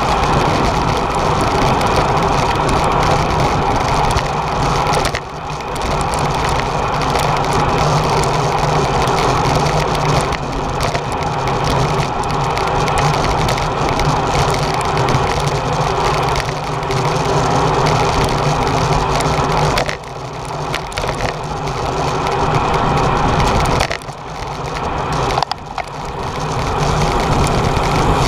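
Steady rush of wind and road noise on a camera carried by a racing bicycle riding in a road-race bunch, dipping briefly a few times.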